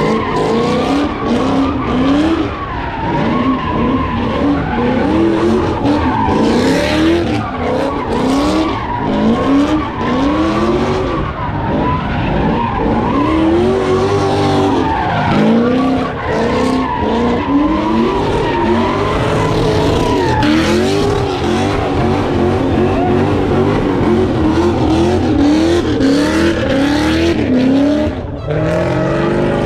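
Car doing donuts: its engine revs rise and fall over and over, about once a second, under continuous tyre squeal.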